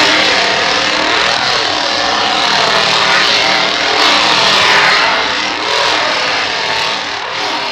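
Two-stroke chainsaw engine revving, its pitch rising and falling over and over as the throttle is worked.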